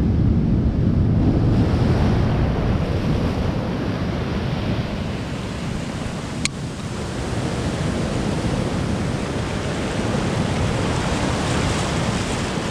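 Heavy ocean surf breaking close by and washing up the beach in foam, with wind buffeting the microphone. A single brief sharp tick about six and a half seconds in.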